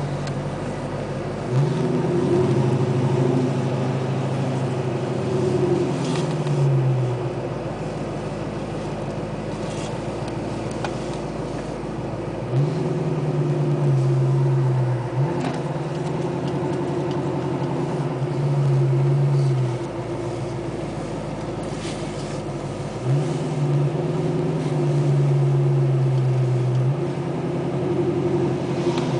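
An engine running steadily, revving up about five times for a few seconds at a time and dropping back to a lower speed between.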